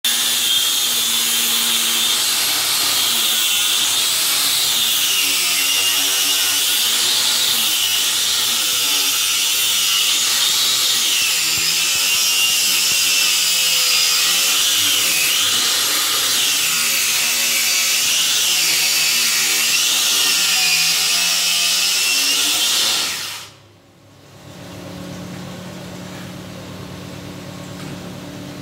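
Corded electric hand planer running and cutting wood. Its motor pitch sags and recovers every second or two as the blades bite on each pass. About 23 seconds in it cuts off suddenly, and a quieter steady hum is left.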